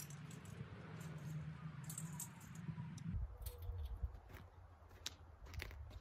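Faint metallic clinking and scattered sharp clicks of metal gear being handled, over a low steady rumble that stops about three seconds in.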